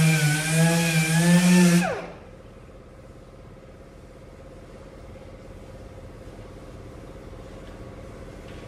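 Electric sanding tool running with a hissing, wavering motor tone; about two seconds in it is switched off and its pitch falls away as it spins down. A faint steady low hum remains after it stops.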